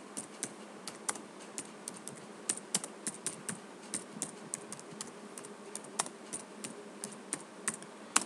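Typing on a computer keyboard: an irregular run of sharp key clicks, about three or four a second, over a steady low hum.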